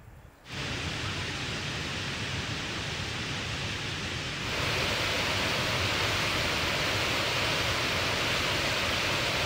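Steady rushing water of a mountain stream or waterfall. It starts abruptly about half a second in and turns louder and hissier about halfway through.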